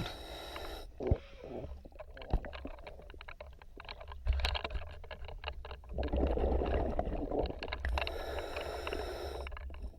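Underwater sound of a diver breathing on a regulator: a low rumble of exhaled bubbles about six seconds in, then a hissing inhale, with many small clicks and knocks throughout.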